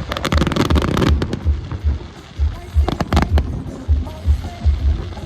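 Fireworks exploding: a dense run of crackling cracks in the first second, then a few separate bangs about three seconds in, over music with a steady low beat.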